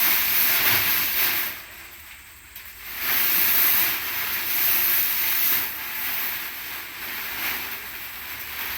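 Polythene wrapping being pulled off a refrigerator, the plastic rustling and crinkling in repeated surges, with a brief lull about two seconds in.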